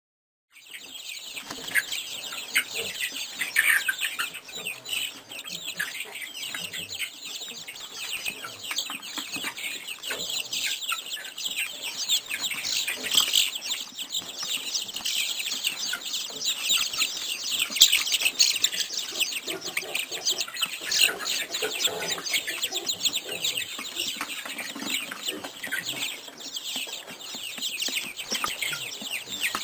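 Many birds chirping and calling at once in a dense, continuous chatter, with a few lower calls mixed in.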